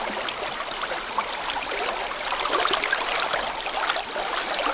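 River water rushing and splashing: a steady, even rush of current dotted with small splashes.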